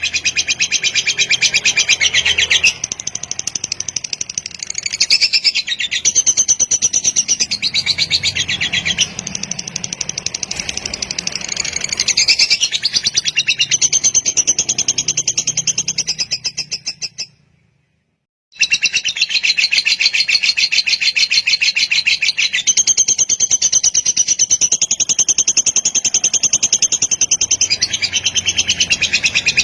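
Lovebird singing long, fast chattering trills of high, rapidly repeated notes (the 'kekek panjang' of a fighter lovebird). The song stops dead for about a second and a half a little past halfway, then resumes.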